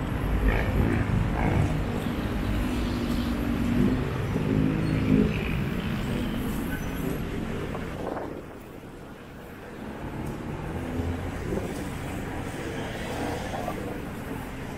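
Urban road traffic: vehicle engines running and passing, a steady low rumble that dips briefly about eight seconds in.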